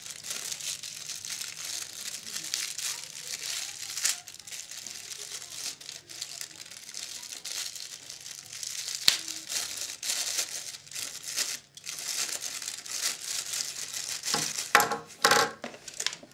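Thin plastic bag crinkling and rustling as it is handled and unwrapped from a small part, with short sharp crackles throughout and one sharper crackle about nine seconds in.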